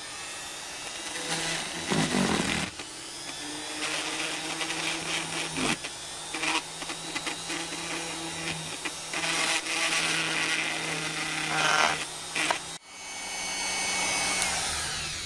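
Lidl straight grinder running steadily with a burr carving olive wood, its grinding noise swelling and fading as it bites into the wood. The sound breaks off abruptly near the end, then comes back.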